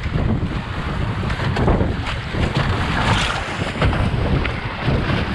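Sea water rushing and splashing between the two hulls of a drua, a Fijian double-hulled sailing canoe, moving fast under sail, with heavy wind buffeting on the microphone. The rush rises and falls unevenly with the splashes.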